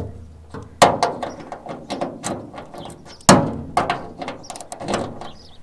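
Socket ratchet wrench clicking in irregular runs as a rusty bolt, freed with WD-40, is undone, with two louder sharp clacks about a second in and just after three seconds.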